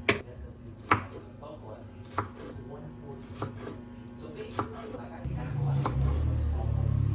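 Knife chopping on a cutting board in slow, single strokes about once a second. A low hum comes in about five seconds in.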